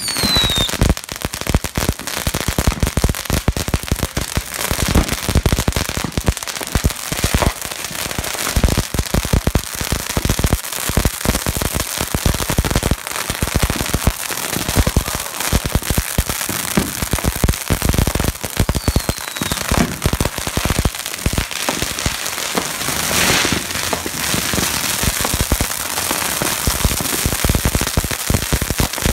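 Firecrackers and ground fireworks going off nonstop in dense, rapid crackling. Short falling whistles come at the start and again about nineteen seconds in.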